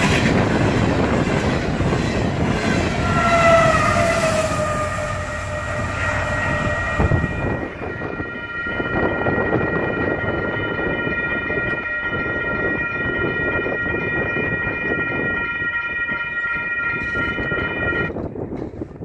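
A freight train's open-top hopper cars rolling past over the crossing, wheels clacking on the rail joints and squealing briefly. Once the train has gone, the grade crossing's warning bell rings steadily, cutting off near the end as the gate arm lifts.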